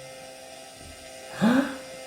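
A short voice-like sound with a rising pitch, about one and a half seconds in, over a steady electrical hum.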